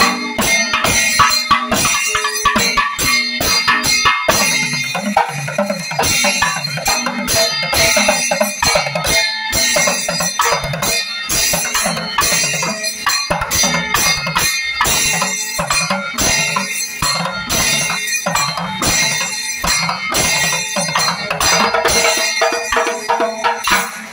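Panchavadyam temple ensemble playing: maddalam barrel drum and timila hourglass drums struck in a fast, dense rhythm, with the idakka and the steady ringing of ilathalam cymbals over it.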